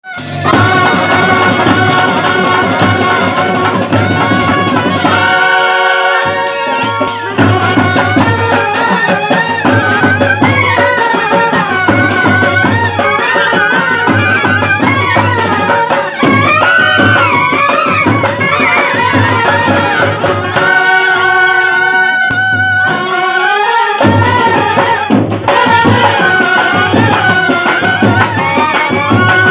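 Street brass band playing loudly: trumpets, clarinets and a large brass horn carrying the tune over bass drums and snare drums beating a steady rhythm. Twice the drums stop while the horns hold long chords, then the beat comes back in.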